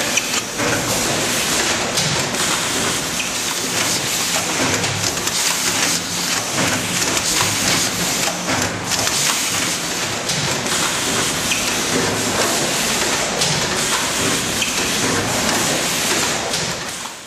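Machinery of a double-lane cup filling and film-sealing line running: a steady, dense hiss and clatter with many small clicks from the conveyor and air-driven filling heads, fading out at the very end.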